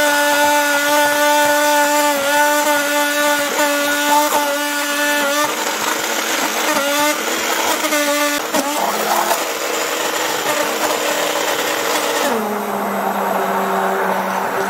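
Immersion (stick) blender running in a saucepan of thick lemon curd, blending it smooth. Its motor whine is steady at first, wavers in pitch in the middle, then drops to a lower steady pitch about twelve seconds in.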